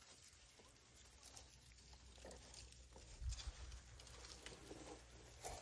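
Faint crackling and rustling of dry grass and twigs as an African elephant feeds, pulling up stems with its trunk and chewing, with a soft low thump a little after three seconds in.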